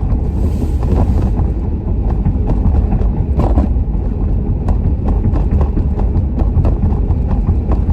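A truck being driven, heard from inside the cab: a steady low road and engine rumble with frequent light ticks and rattles, and a brief hiss about half a second in.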